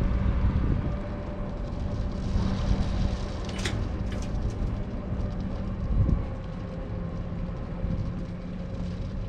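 Truck engine idling steadily, with a couple of short knocks about three and a half and four seconds in.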